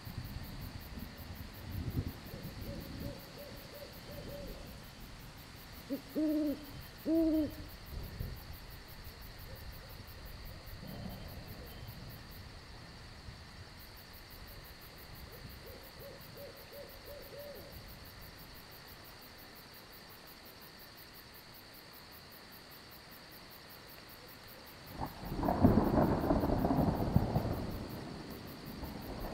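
Owls hooting, two short hoots about six and seven seconds in, over a low rumble of distant thunder and a steady high chirring of crickets. A loud thunder rumble breaks in about 25 seconds in.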